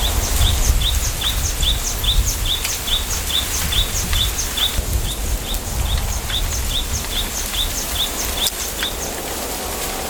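A small bird repeating a short, high, falling chirp about three times a second, steadily, over a low wind rumble in a bamboo grove. One sharp click about 8.5 seconds in.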